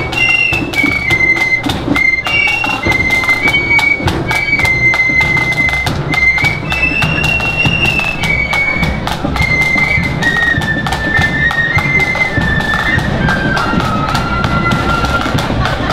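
Marching flute band playing a tune on flutes over a steady drumbeat. The melody steps down in pitch near the end.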